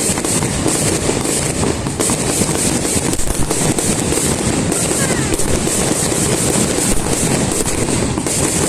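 Fireworks display: a dense, continuous crackle of many rapid pops and bursts with no pause.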